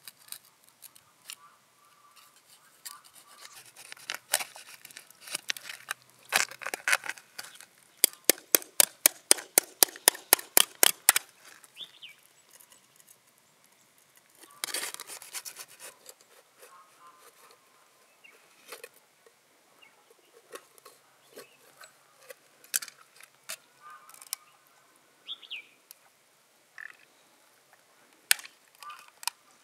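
Knife blade scraping and clicking against the shell of a large freshwater mussel as it is prised open, with a fast run of about a dozen sharp strokes, roughly four a second, about a third of the way in, and a longer scrape a little later.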